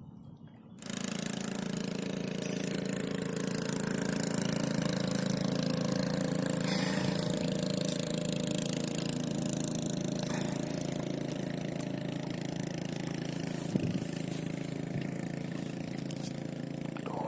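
A small engine comes on abruptly about a second in and runs steadily at a constant speed.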